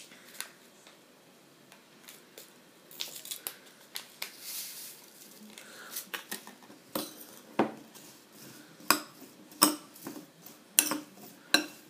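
A paper sachet of vanilla sugar rustling as it is torn open and emptied. Then a metal spoon stirring diced apple and pear in a glass bowl, with about six sharp clinks of spoon against glass in the second half.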